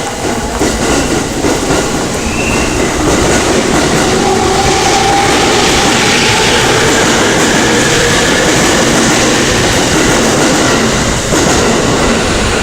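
E231-series electric commuter train running on the rails: wheels clattering over the track with a faint gliding motor whine. It grows louder over the first few seconds, then holds steady.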